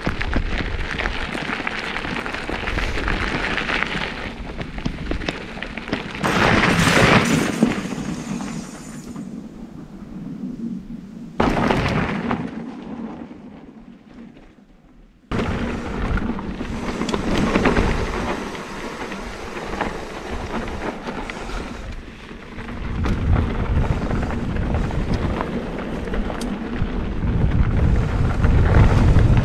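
Wind buffeting an action camera's microphone, with a mountain bike's knobby tyres rolling over a dirt singletrack trail. It dips quieter in the middle, then comes back abruptly.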